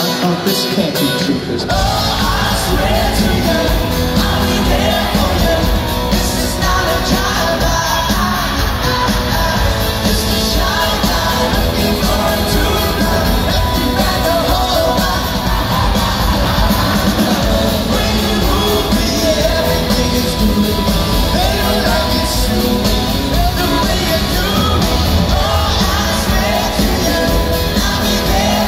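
Live pop-rock band with lead vocals, drums, electric guitars and bass; the drums and bass come in about a second and a half in after a lighter guitar passage, and the full band plays on under the singing.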